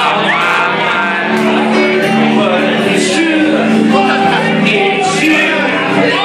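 Karaoke: a voice singing a pop song over a loud backing track, in a room that echoes.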